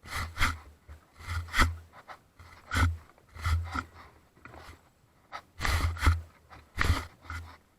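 A person breathing hard in irregular bursts, with low thumps of movement or handling noise on the microphone.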